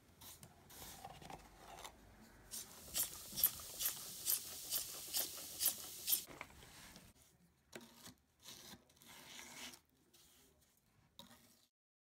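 Tool scraping over a carved wooden board coated in wet, foaming baking-soda stripping paste: a run of about ten quick scraping strokes, a little over two a second, then a few softer rubs. The sound cuts off just before the end.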